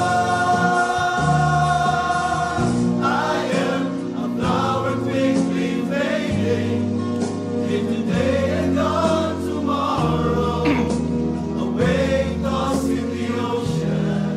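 Male vocal ensemble singing a Christian worship song in English in close harmony, opening on a held chord.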